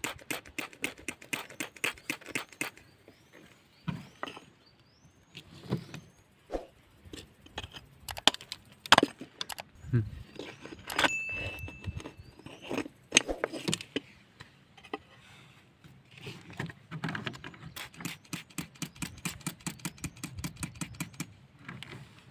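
Stones clicking and scraping in fast runs of short strikes, as rock is dug or raked through with a tool, broken by pauses and a few single louder knocks.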